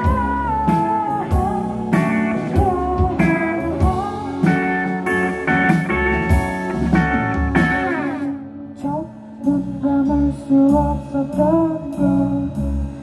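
Live rock band playing: a woman singing over a Stratocaster-style electric guitar and a drum kit. About two-thirds of the way through, a falling slide leads into a quieter, sparser passage without cymbals.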